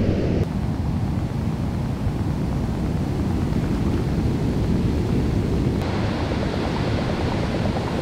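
Breaking ocean surf and whitewash, a dense steady rush with wind buffeting the microphone. The sound changes abruptly about half a second in and again about six seconds in, where it turns hissier.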